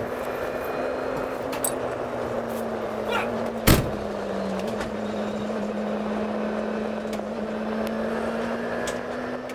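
Car engine running steadily, with a single loud thunk of the Golf's passenger door being shut about four seconds in.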